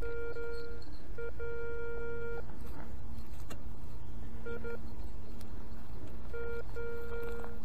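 Garrett Ace 250 metal detector sounding its target tone: one mid-pitched beep repeated as the coil passes over a buried metal target, some beeps held about a second and some short, in pairs. A steady low rumble runs underneath.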